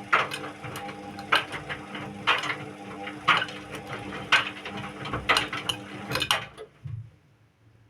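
Indesit WIU 81 washing machine running its wash cycle: a steady motor hum with a sharp metallic clink about once a second as the drum turns. The drum stops about six and a half seconds in.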